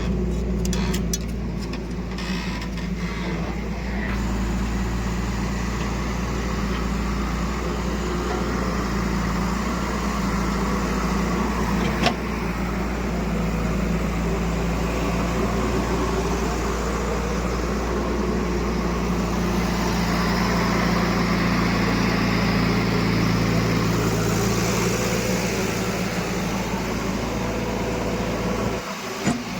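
Diesel engine of a backhoe loader or tractor running steadily, with a single sharp click about twelve seconds in.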